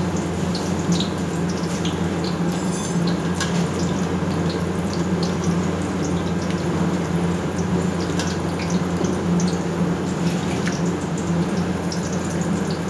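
Batter balls deep-frying in a large wok of hot oil: a steady sizzle with scattered crackles and pops, over a low steady hum.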